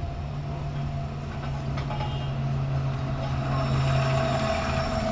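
A steady low mechanical hum with a rushing noise that slowly builds, then stops about four and a half seconds in.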